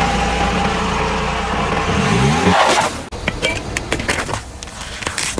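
Car engine running at low speed, its note rising about two seconds in. It cuts off abruptly, and crackling and sharp cracks follow as aluminium drink cans are crushed under a tyre, with a hissing burst of soda spraying out near the end.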